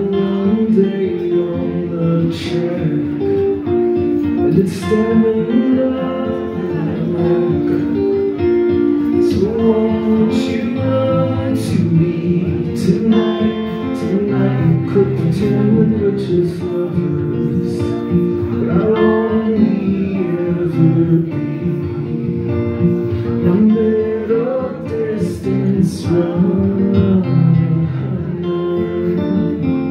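A man singing a song live while strumming an acoustic guitar.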